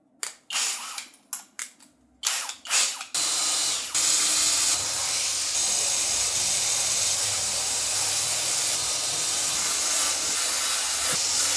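A few short clicks and whirs as a larger bit is fitted and tightened in the chuck of a Hoto brushless cordless drill; then, from about three seconds in, the drill runs steadily as it bores holes through a PC case's front panel.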